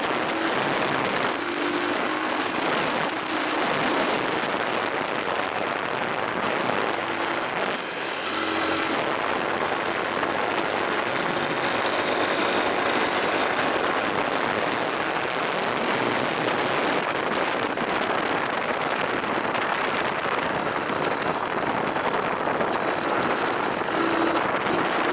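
Honda dirt bike being ridden, its engine running under a steady loud rush of wind and travel noise.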